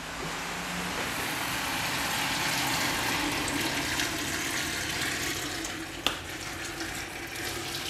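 Water pouring from a kettle into a pot of dried split peas, potatoes and ribs, a steady splashing fill. A single sharp clink about six seconds in.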